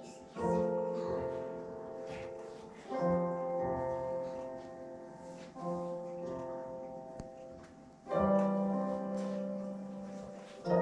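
Background music of slow piano chords, a new chord struck every two to three seconds and each one fading away.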